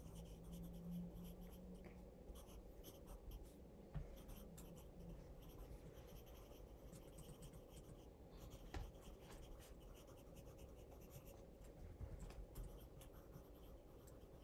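Pencil writing on notebook paper: faint, quick scratching strokes, broken by a few light clicks.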